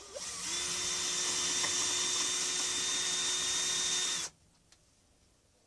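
Electric drill spinning up and running steadily for about four seconds, then stopping, as a bit is run into the pin hole of a bench vise to check for a broken-off pin.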